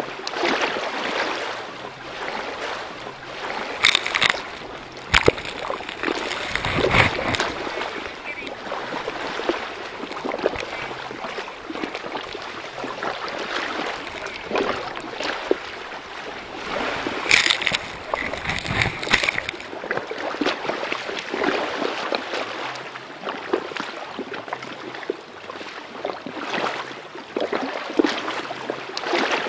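Water splashing and rushing along the side of a moving boat, with several louder splashes.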